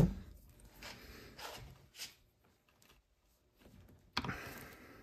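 Handling noises from a Colt Walker black-powder revolver being loaded: a sharp knock at the start, a few faint clicks, and a louder knock with a scrape about four seconds in as the cylinder and loading lever are worked.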